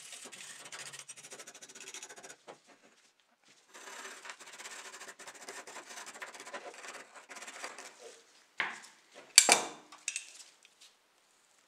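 Stiff brush scrubbing softened red paint off the bare metal body of a model Volkswagen Type 3 car, a scratchy rasping in two spells with a short pause between. Near the end come three sharp knocks, the middle one loudest.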